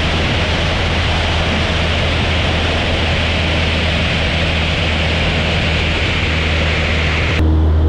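Airstream rushing over a microphone mounted outside a light aircraft in flight: a steady, loud hiss with the engine and propeller drone faint beneath it. About seven seconds in it cuts to the steadier, lower engine drone heard from inside the cockpit.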